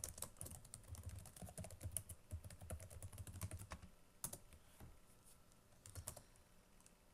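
Faint typing on a computer keyboard. A quick run of keystrokes lasts about four seconds, then thins to a few scattered key presses.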